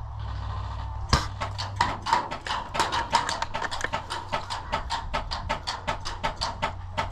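A quick, uneven run of sharp clicks and taps, several a second, with one louder crack about a second in, over a steady low rumble.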